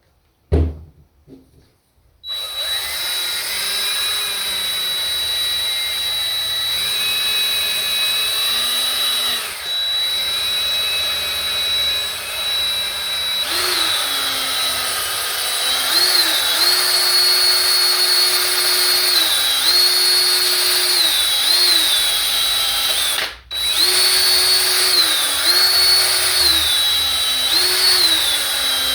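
Small handheld power tool used as a buffer to polish a guitar's finish. Its motor starts about two seconds in with a steady whine that keeps dipping in pitch and recovering as it is pressed onto the surface and eased off. It stops briefly near the end and starts again. A single knock comes just before it starts.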